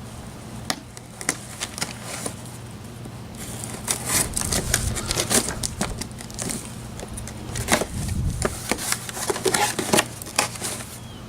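Cardboard box and its packaging being opened and handled by hand: a few scattered clicks and scrapes, then denser crinkling, tearing and rustling from about three seconds in until near the end, over a faint steady low hum.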